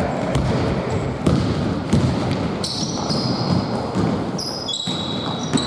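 A basketball bouncing on an indoor court floor, with sneakers squeaking in several short high-pitched squeals over the second half.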